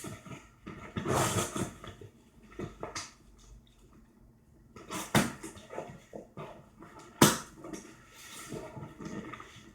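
A box being opened and unpacked by hand: rustling of packaging with a few sharp knocks, the loudest about five and seven seconds in.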